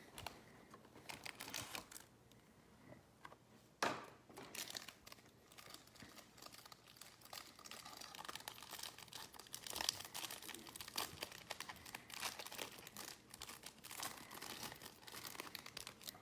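Trading-card pack wrappers being torn open and crinkled, faint and crackly, with a sharper snap about four seconds in and denser crinkling through the second half.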